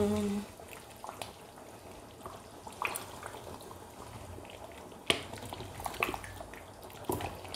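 Pot of Nigerian tomato stew simmering: a low, even bubbling with a few scattered sharp pops.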